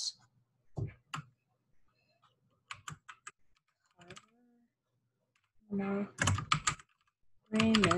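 Computer keyboard being typed on: keystrokes in short, irregular runs of a few taps, spelling out a word.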